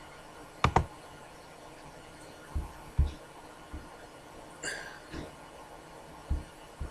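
Computer mouse clicking: a quick sharp double click about a second in, then a few soft low thumps and one brief crackle, over a faint steady hiss.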